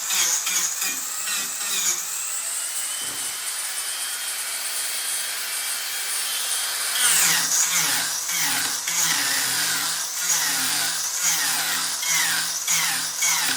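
Mini angle grinder with a shaping disc cutting into wood in quick repeated strokes, steadier for a few seconds in the middle.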